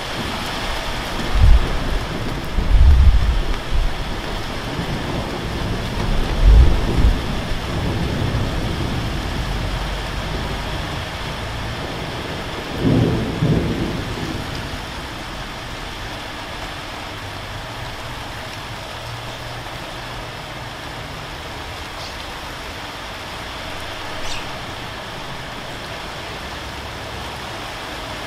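Steady rain falling, with several low rumbles of thunder in the first half, the loudest a few seconds in.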